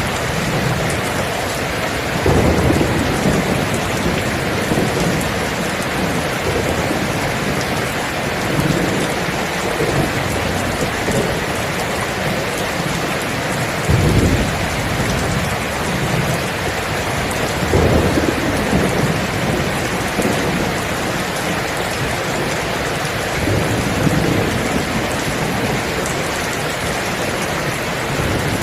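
Steady heavy rain falling, with low rumbles of thunder rolling in every few seconds; the strongest rolls come about halfway through and a little after.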